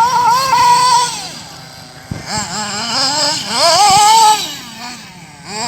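Thunder Tiger SB4 radio-controlled car's engine revving in repeated throttle bursts, its whine rising and falling in pitch, with a short lull about a second and a half in.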